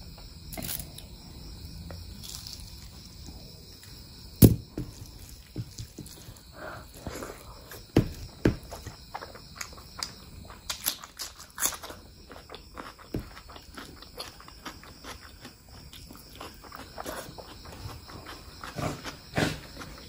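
Close-miked eating: chewing and mouth sounds over a mouthful of mutton curry and rice, with irregular clicks and smacks. One sharp click about four and a half seconds in is the loudest.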